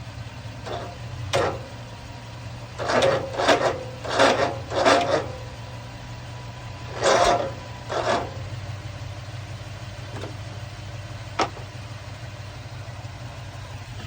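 Several short sprays from an aerosol can of brake cleaner, fogged into the John Deere mower's engine to try to start it while it is flooded. They come as a cluster of quick hisses about three to five seconds in, then two more near the end, over a steady low hum.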